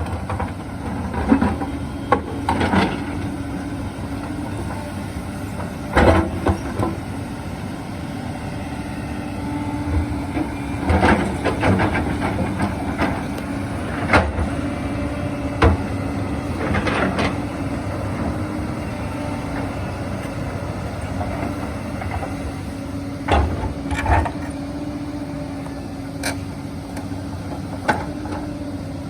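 Hyundai 220 excavator's diesel engine running steadily with a held hum. Irregular clanks and knocks come from the bucket striking and dragging rocks as it pulls and turns them over.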